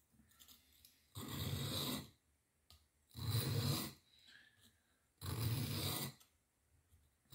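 A butter knife's blade drawn across a sharpening stone: three rasping strokes of just under a second each, about two seconds apart.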